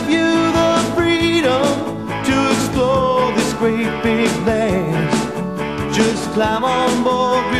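Rock music soundtrack with a steady drum beat.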